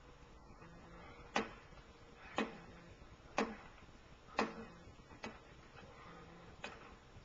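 Boxing gloves striking a heavy bag, six thuds about a second apart, the last two weaker. They are heard through a TV's speaker and re-recorded off the screen.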